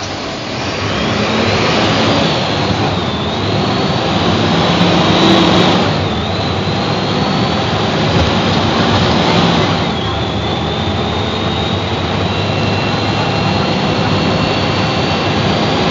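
Mercedes-Benz OF-1724 bus's OM 926 LA diesel engine accelerating through the gears. A high whine climbs with the revs and drops back at each of about three gear changes, then climbs slowly again.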